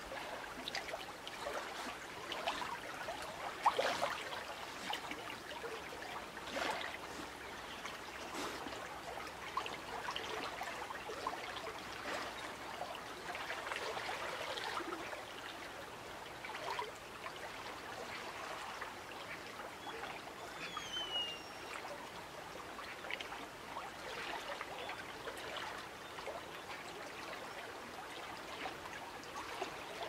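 River water flowing and rippling along the bank: a steady rush of water broken by many small splashes.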